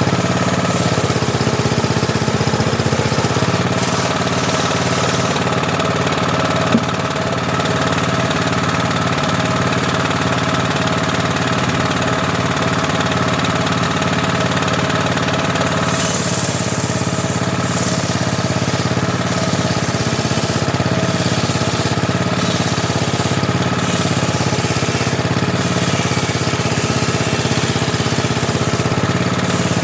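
Homemade table saw running steadily, its drive engine holding an even pitch. A single sharp click comes about seven seconds in, and short hissy high-pitched patches come and go through the second half.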